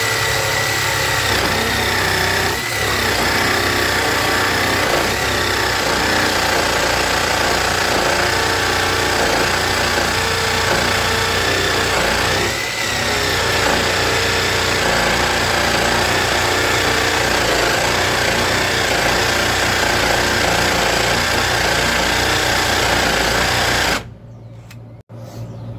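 Bauer cordless jigsaw running on its fastest setting with an aggressive blade, sawing steadily through 1-inch-thick mahogany, dipping briefly twice; the saw stops near the end.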